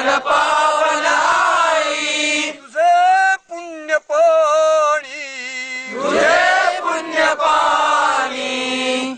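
A crowd of men chanting a Marathi patriotic song together, call-and-response style. Around the middle a single male voice sings a line alone, and the group comes back in near the end.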